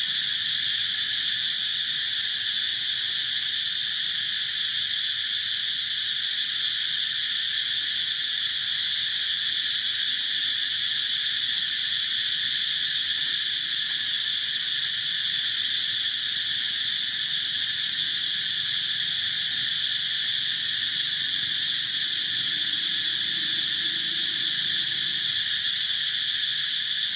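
Steady, unbroken insect chorus: a high-pitched shrill drone that neither rises nor falls.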